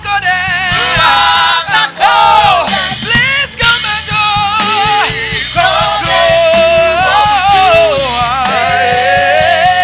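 Gospel worship singing over instrumental accompaniment: voices singing wordless, drawn-out phrases with vibrato, holding one long note near the end.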